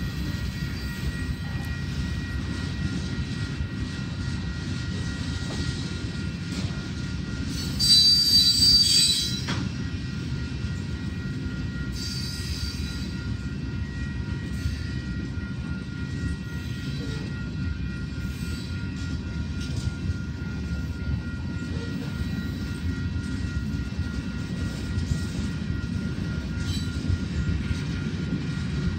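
Freight train of covered hopper cars rolling past, a steady rumble of wheels on rail with faint steady high tones over it. About eight seconds in, the wheels squeal louder for a second or two, and more weakly again around twelve seconds.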